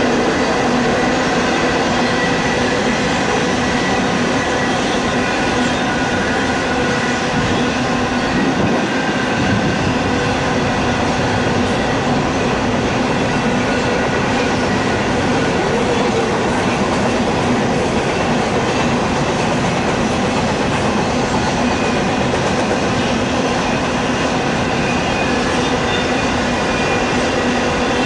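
Double-stack intermodal freight train cars rolling past at a steady speed: a continuous noise of steel wheels on rail, with faint steady high tones running through it.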